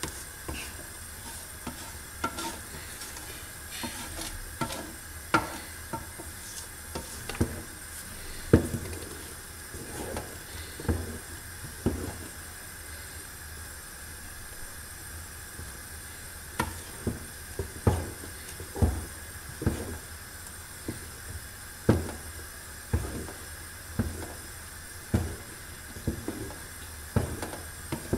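A long wooden pestle stirring and mashing a thick sesame and hazelnut paste in an aluminium pot, giving short dull knocks roughly once a second against the pot, with a pause midway. A faint steady hiss lies underneath.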